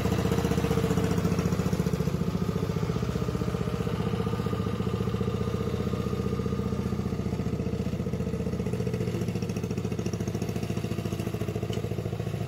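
The engine of a homemade zero-turn mower built from a Snapper rear-engine rider, running steadily while the mower is driven, growing a little fainter as it moves away.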